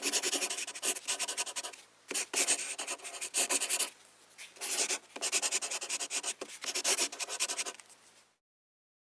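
Rapid scribbling on paper in three runs of quick scratchy strokes, like a logo being drawn by hand, stopping about eight seconds in.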